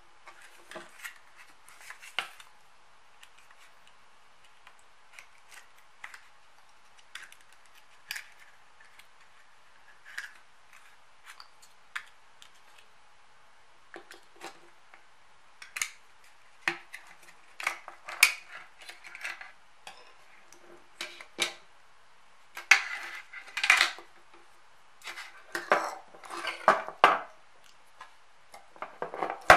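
Small screwdriver prying and scraping at the plastic case and cells of an opened laptop battery pack: scattered clicks and taps of hard plastic and metal, sparse at first and busier in the second half as the 18650 cell pack is worked loose.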